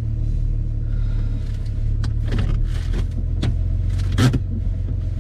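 Low steady rumble of a car's engine and tyres heard from inside the cabin as the car rolls slowly to a stop, with a few sharp clicks and knocks in the second half, the loudest about four seconds in.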